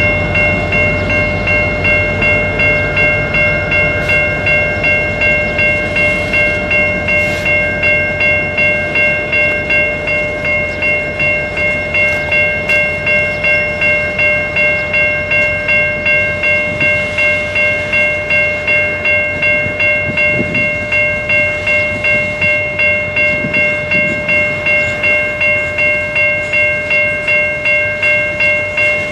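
Locomotive bell ringing continuously at about two strokes a second, over the rumble of freight cars rolling slowly past.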